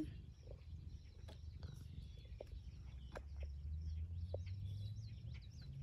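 Small birds chirping in the background, a string of quick high chirps most busy in the second half, over a low rumble, with a few faint clicks.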